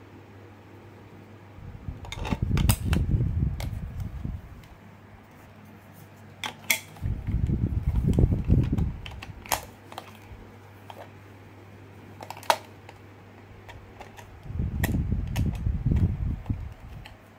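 A hard plastic toy being handled and its battery cover fitted: three spells of rubbing, rumbling handling noise with sharp plastic clicks and taps between them, over a steady low hum.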